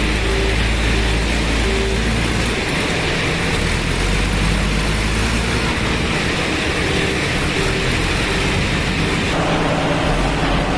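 Diesel engine of a JCB 3DX backhoe loader (Kirloskar engine) running steadily under work, with a change in its sound near the end.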